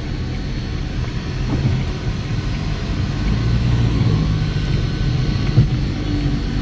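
Toyota Corolla driving slowly, a steady low rumble of engine and road noise, with one short knock about five and a half seconds in.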